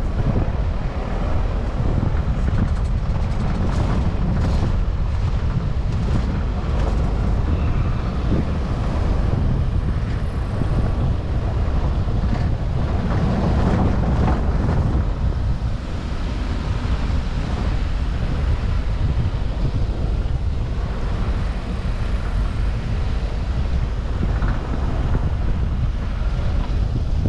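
Wind buffeting the microphone: a steady, loud low rumble with a broad rushing hiss above it.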